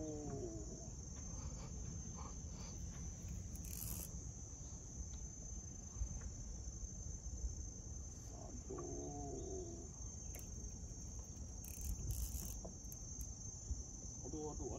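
Steady high-pitched drone of insects, with two short warbling calls, one just after the start and one about nine seconds in, and a few faint brief clicks.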